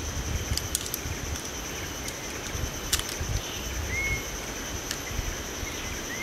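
Outdoor ambience: a steady high insect drone over an uneven low rumble, with a bird giving a short upslurred whistle about four seconds in and again near the end.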